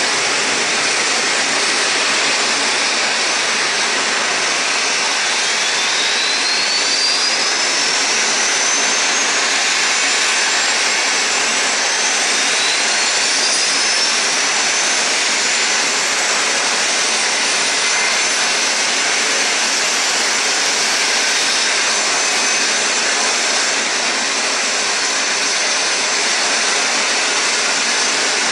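Rolls-Royce Trent 970 turbofans of an Airbus A380-841 running with a loud, steady rush. Two high whines climb slowly in pitch, one starting about five seconds in and another about twelve seconds in, as engines spool up during engine start.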